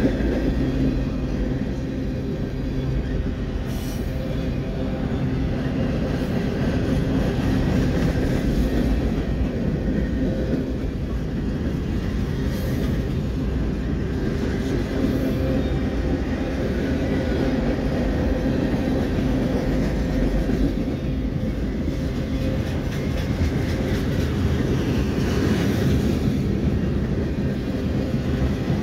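CSX mixed manifest freight cars (boxcars and tank cars) rolling steadily past, steel wheels running on the rails.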